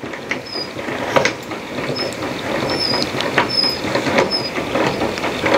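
Four-frame stainless-steel honey extractor turning as its frames are spun to throw the honey out, a steady rumble that slowly grows louder. Short high squeaks and clicks come round about one to two times a second.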